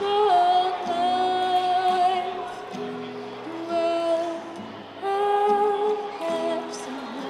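A woman singing long held notes in phrases, accompanied by acoustic guitar.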